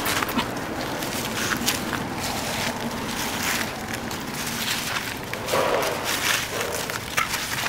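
Footsteps crunching and rustling through dry fallen leaves, an irregular run of short crackles over a steady outdoor hiss.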